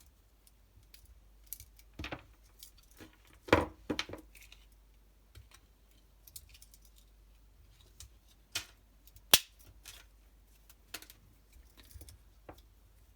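Close-up handling of a pocket knife while a lanyard is swapped on it: scattered small clicks and brief rustles. A cluster of louder knocks comes about three and a half seconds in, and a single sharp click, the loudest, about nine seconds in.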